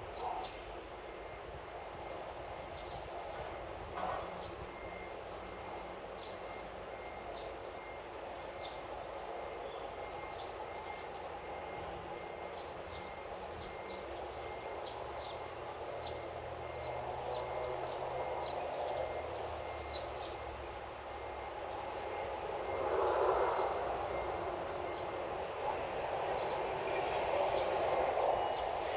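Steady outdoor background rumble with short, faint chirps scattered throughout; the rumble swells louder about three quarters of the way through and again near the end.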